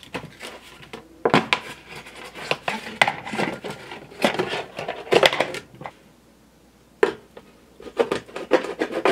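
Thin plastic jug being handled and cut apart with a knife: irregular crackling, scraping and knocking of the plastic, with a short lull about six seconds in.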